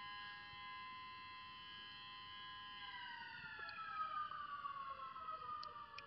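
Faint siren-like whine made of several tones sounding together, held steady and then sliding slowly down in pitch from about three seconds in.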